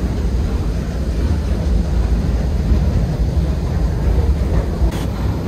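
Steady low rumble of a paddle steamer underway, its paddlewheel churning the water next to the hull and its steam engine running.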